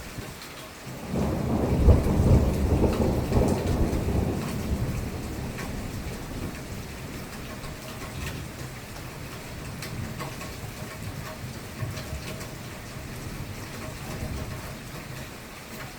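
A thunderclap about a second in, loudest near two seconds, then rumbling and fading over the next few seconds. Steady rain falls throughout.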